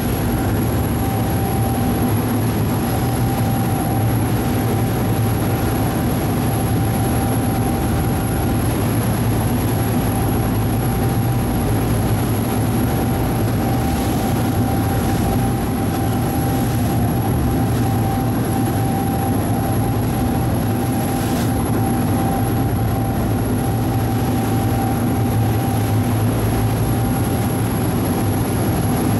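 Ferry engine running steadily under way: a constant low drone with a few steady hum tones over it.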